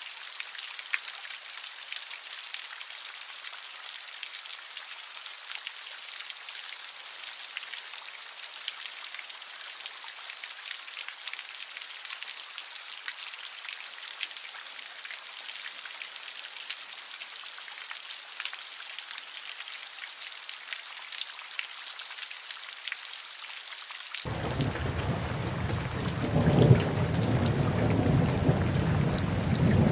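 Steady rain pattering, a dense fall of fine drops. About 24 seconds in it changes abruptly to louder, heavier rain with a low rumble.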